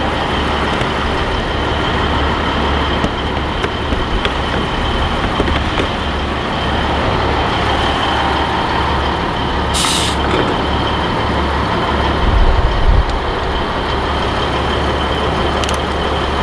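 Heavy diesel trucks running at a fuel island, a steady low rumble with a faint high whine over it. A short hiss of released air comes about ten seconds in, and the low rumble swells briefly a couple of seconds later.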